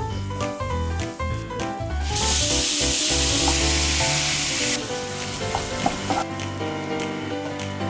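Food sizzling in hot oil in a frying pan, starting suddenly about two seconds in, strongest for a few seconds and then dying down, with stirring; background music plays throughout.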